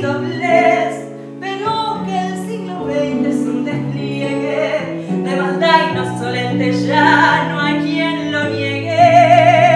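A woman singing into a microphone over instrumental accompaniment with a steady bass line; near the end she holds a note with vibrato.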